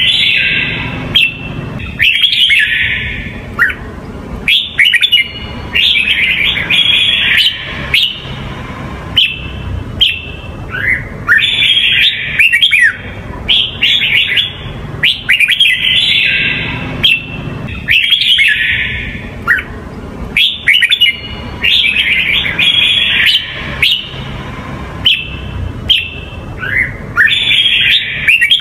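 Red-whiskered bulbul singing: loud, quick phrases of warbled, whistled notes, repeated over and over with short pauses between them.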